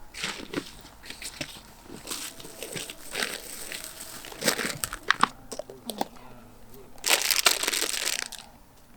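Plastic bags and packaging crinkling and rustling in irregular bursts, then bug spray hissing for about a second and a half near the end.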